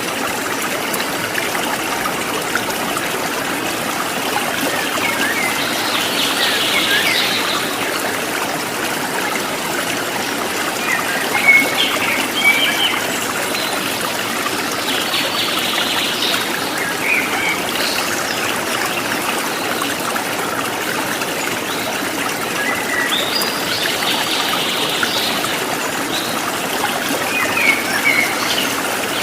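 Stream of running water trickling steadily, with small birds chirping in short bursts every few seconds over it.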